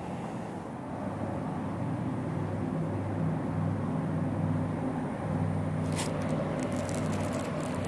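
A motor vehicle's engine running steadily as a low hum that grows slightly louder about a second in. Near the end, a quick cluster of sharp clicks.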